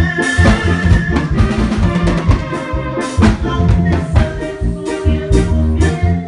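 Live band music in an instrumental passage: a drum kit plays a busy beat with bass drum and snare over sustained pitched instruments.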